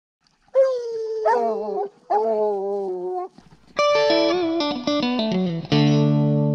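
Hound baying in three long drawn-out howls, the second overlapping the first. An electric guitar then plays a quick descending run of notes and ends on a held, ringing chord.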